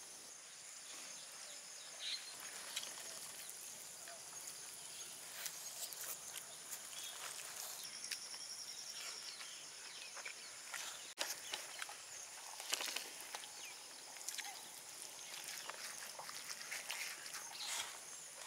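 Quiet outdoor background: a steady high hiss with scattered short clicks and taps, and a brief even high pulsing about halfway through.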